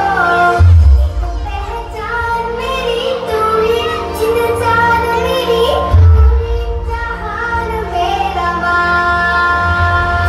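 Indian patriotic song mashup with sung vocals over a steady beat, with heavy bass hits about a second in and again about six seconds in.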